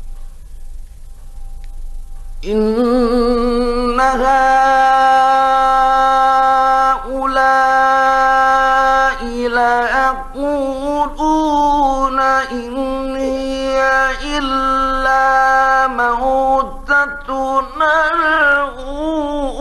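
Male Quran reciter chanting in the melodic mujawwad style, on an old 1950s recording. About two seconds in, the voice comes in and holds long, steady notes, broken by a few short breaths, with wavering runs near the start, the middle and the end.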